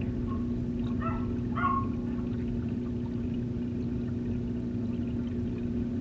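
Aquarium filter water flow heard underwater in the tank: a steady low rushing noise with a constant hum. A few short pitched calls from an unseen source sound over it about one to two seconds in.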